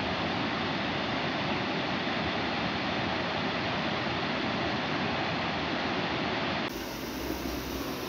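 Muddy floodwater pouring over a rocky ledge, a steady dense rush of water. About 6.7 seconds in it cuts suddenly to a slightly quieter hiss of rain.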